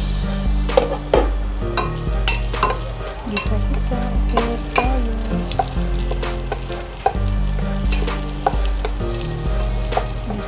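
Onion, garlic and ginger sizzling as they sauté in hot oil in a stainless steel pot, stirred with a spoon that clicks and scrapes against the pot now and then.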